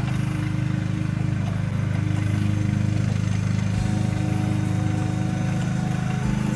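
An engine running steadily at a constant speed, a continuous low drone.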